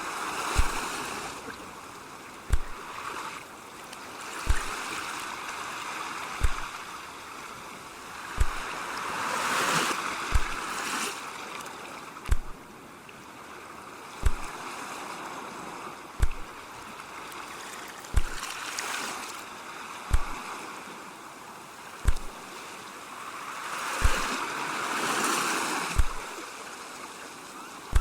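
Ocean waves washing in and drawing back, with a swell about every eight to ten seconds. A regular low thump sounds about every two seconds beneath them.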